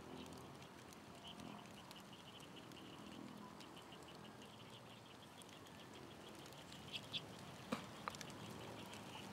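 Faint, rapid high-pitched chirping trill from small animals, pulsing steadily, with a few sharp clicks near the end.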